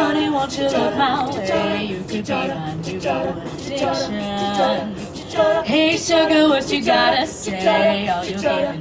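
All-female a cappella group singing in close harmony, with no instruments: several voices holding and moving between notes together.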